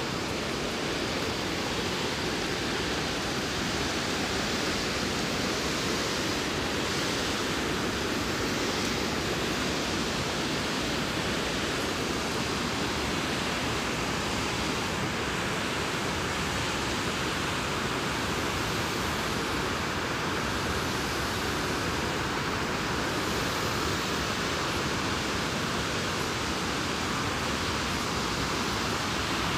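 River water pouring over a long concrete dam spillway and rushing over the rocks below: a steady, unbroken rush of falling water.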